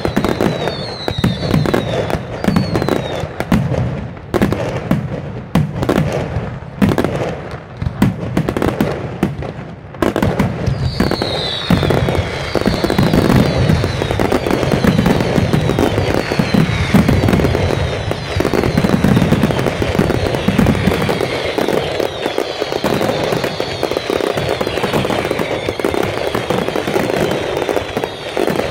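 Aerial fireworks display: rapid shell bursts and crackling. The bangs come in clusters with short lulls for the first third, then merge into a dense, continuous barrage of bursts and crackle.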